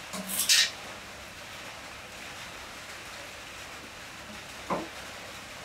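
Parts of an old CRT television being handled at the picture tube's neck: two short hissy scrapes in the first second and a soft low knock near the end, over a steady faint hiss.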